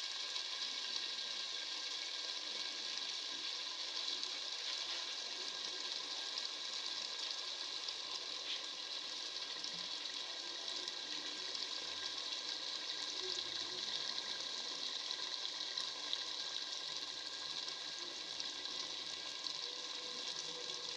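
Potatoes in an onion-tomato masala frying in oil in a pot: a steady sizzle.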